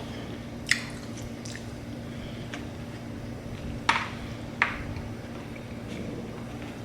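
A person chewing food close to the microphone, with three sharp crunches, about a second in and twice around four to five seconds in, over a steady low hum.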